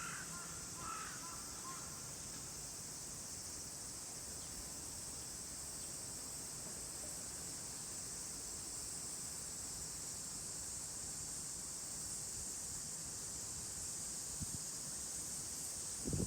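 Steady, high-pitched insect chorus of a summer evening, with a crow cawing a few times in the first two seconds.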